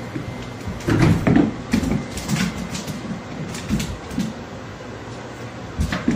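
A cat's paws thumping and knocking on a hardwood floor as it pounces and scrambles, with a loud flurry of thuds about a second in and a single sharp thud near the end.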